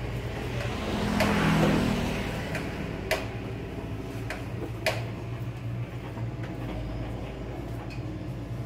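Shop room tone with a steady low hum. A passing vehicle swells and fades about a second in, and a couple of sharp clicks follow a few seconds later.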